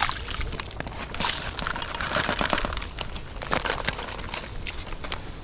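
Dry groundbait being shaken out of a fabric bait bag onto the water: the bag rustles and crinkles, and the crumbs hiss and patter as they land. The hiss is strongest about one to three seconds in.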